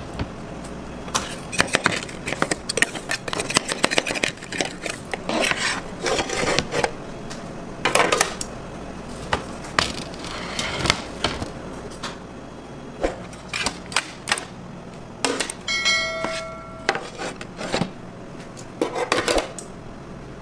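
Kitchen clatter: metal trays, pans and utensils knocking and scraping, with many sharp clicks and knocks at irregular intervals. A brief steady tone sounds about three quarters of the way through.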